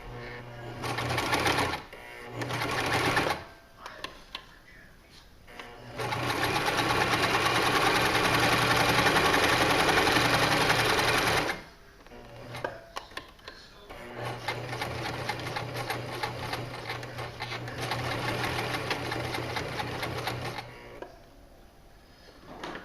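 Janome HD1000 sewing machine stitching in stops and starts: two short runs, then a long, loud run of about five seconds, then a quieter run of about six seconds.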